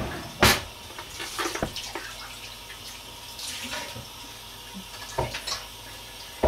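Kitchen handling sounds: a sharp knock about half a second in, then scattered clinks and knocks of a spoon against a plastic blender jug, with a short hiss a few seconds in.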